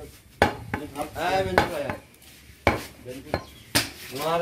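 Butcher's cleaver chopping goat meat on a wooden stump chopping block: about six sharp knocks at irregular intervals.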